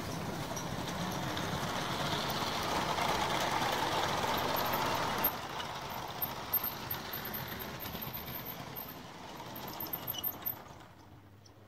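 Motorised building-block toy train running on plastic track: a steady rumble of motor and wheels that grows loudest as the train passes close by, with a few light clicks. The rumble falls away sharply near the end.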